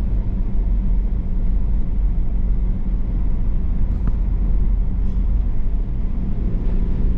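Road noise inside a moving car: a steady low rumble of tyres and engine with a faint, even hum.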